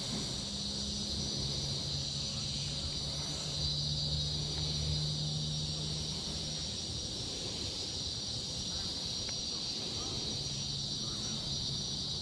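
Steady, continuous high buzzing of an insect chorus. A low, steady hum underlies it for the first half and returns near the end.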